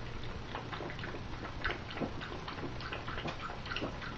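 A bulldog lapping water from a stainless steel bowl: quick, irregular slurps and splashes several times a second.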